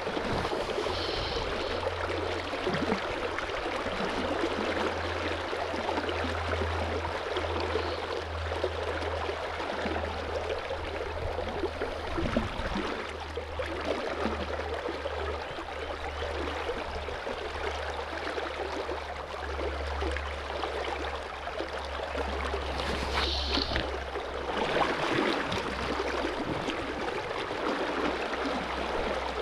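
Shallow river water running and gurgling over stones close by, a steady rushing with a low rumble underneath.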